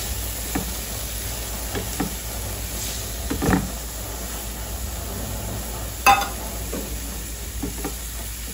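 Chopped onions and turmeric sizzling in ghee in a non-stick frying pan while a wooden spatula stirs them, scraping and knocking against the pan now and then; the sharpest knock comes about six seconds in.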